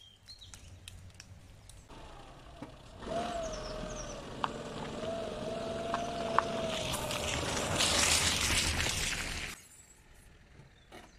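A motor vehicle running, with a steady whine over a rushing hiss that swells, starting about three seconds in and cutting off suddenly near the end.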